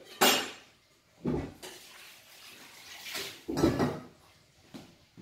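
Kitchen handling sounds: four short clatters and rustles, the loudest near the start and another about three and a half seconds in.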